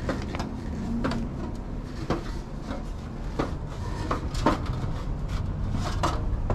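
Irregular knocks and clacks, about ten spread over several seconds, over a steady low rumble.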